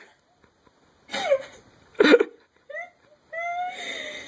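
A dog whining and grumbling: two short noisy cries with falling pitch, a few brief rising whimpers, then one longer whine near the end.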